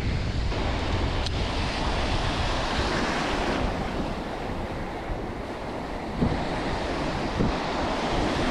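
Small waves breaking and washing over a shallow rocky shore, with wind buffeting the microphone. Two brief knocks sound late on.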